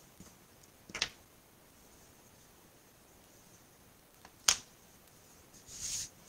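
Paper crafting at a table: a light click about a second in, a sharp tap about four and a half seconds in, and a brief rustle of card being moved near the end.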